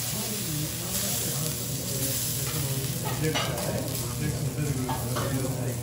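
Wagyu steak block sizzling on a hot steel teppanyaki griddle, a steady frying hiss, with a few light clicks of a metal tool against the griddle about halfway through.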